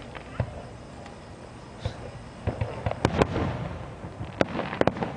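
Fireworks going off: a few scattered bangs, then from about halfway a quick run of sharp cracks and pops.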